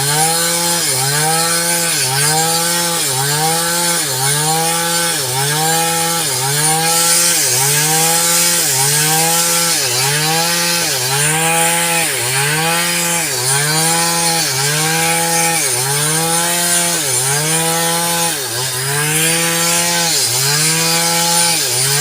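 A rhythmic, pitched back-and-forth sawing or rubbing sound, each stroke rising and then falling in pitch, repeating evenly about once a second.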